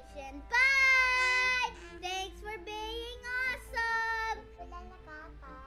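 A young girl singing: a loud held note beginning about half a second in, then a few shorter notes, the voice dropping away in the last second.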